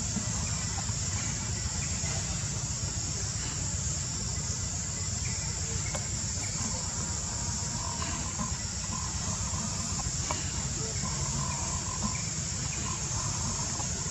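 Steady high-pitched insect drone over a low rumble, with a few faint chirps in the second half.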